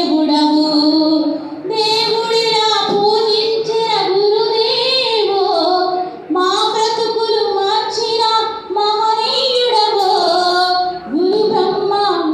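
A woman singing a Telugu song in praise of the teacher (guru) into a handheld microphone, a single voice in long, held melodic lines with short breaths between phrases.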